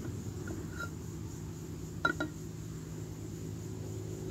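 Aluminium cook pot being set and adjusted on an alcohol camp stove, its metal clinking: a few faint ticks early, then two quick sharp metallic clinks with a short ring about two seconds in. A steady low rumble runs underneath.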